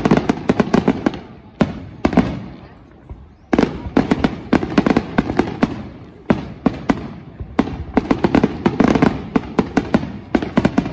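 Fireworks display: aerial shells bursting in several volleys of rapid sharp bangs and crackles, with single bangs and short lulls between the volleys.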